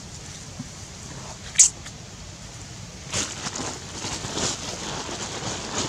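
Irregular crunching and scuffing footsteps on dry leaves and dirt, starting about halfway through, after a single sharp high-pitched tick about a second and a half in.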